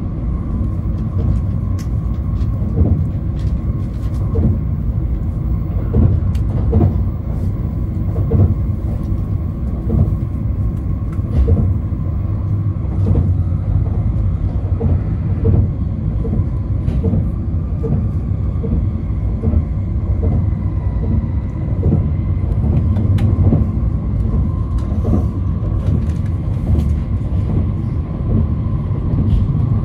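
Cabin noise inside a Shinkansen bullet train running along the line: a steady low rumble with scattered light clicks and a faint steady whine.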